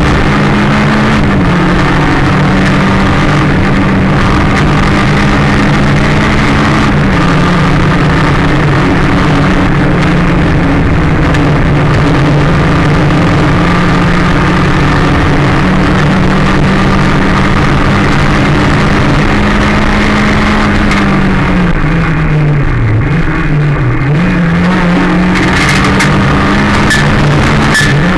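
Rally car engine heard from inside the cabin, running hard at a fairly steady high pitch with small shifts in revs. About 22 seconds in, the revs drop sharply twice and climb back, as the car slows into a bend.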